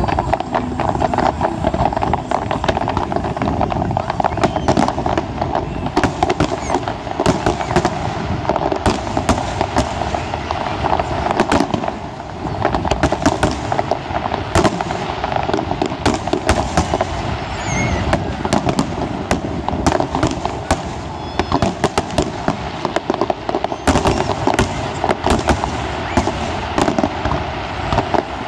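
Fireworks display going off: a dense, unbroken run of sharp cracks and bangs from many shells bursting in quick succession, over a continuous crackle.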